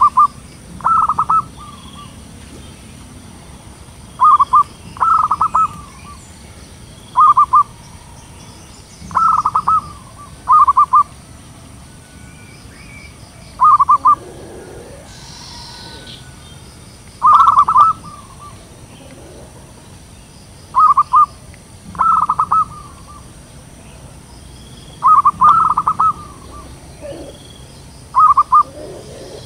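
Zebra dove cooing: short bursts of rapid coos, each under a second, repeated every one to four seconds and sometimes in quick pairs. Faint chirps of other birds and a steady high hiss lie behind them.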